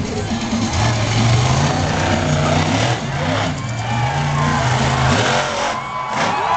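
Monster truck engine revving hard, its pitch stepping up and down with the throttle as the truck charges across the dirt and launches over a row of cars.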